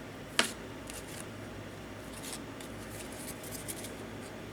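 Trading cards and foil card packs being handled: a sharp click about half a second in, then faint scattered ticks and rustles.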